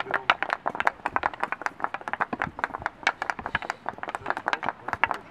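Several hockey sticks knocking balls during a stickhandling drill: quick, irregular, overlapping clacks, many a second.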